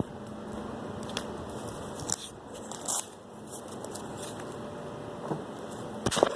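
A few light clicks and rustles as the cut-open metal spray paint can and its parts are handled, over steady background noise.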